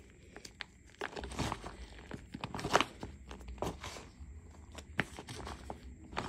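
Hands crumbling and squeezing a crumbly chunk of blue cornstarch mudpie with glitter, giving irregular crunches and crackles, the loudest a little under three seconds in.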